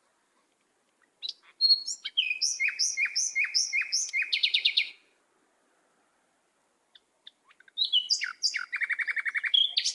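A songbird singing two phrases, each a run of repeated whistled notes that slide downward and end in a fast trill. The first phrase starts about a second in and lasts about four seconds; the second begins near the eighth second.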